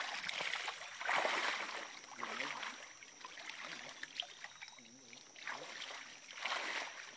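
Shallow creek water splashing and sloshing in bursts as a person wades through it and churns it with his arms and legs.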